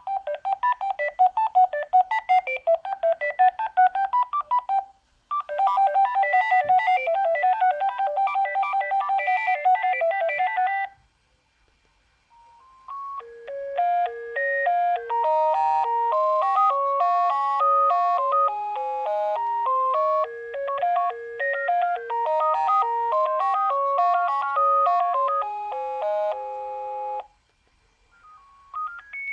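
Sagem my101X mobile phone playing its built-in electronic ringtones one after another, with short pauses between them. The first tune is made of fast, rapidly repeated notes, the second is another busy tune, and a longer, slower melody of distinct stepping notes follows. A new tune starts right at the end.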